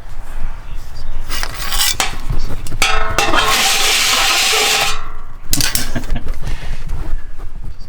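Clattering and scraping as oil drain pans and gear are handled during an oil change, with a rushing noise for about two seconds in the middle.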